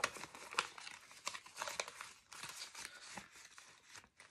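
Euro banknotes and a clear plastic zip envelope rustling and crinkling as the notes are handled and tucked into it, with scattered short sharp clicks.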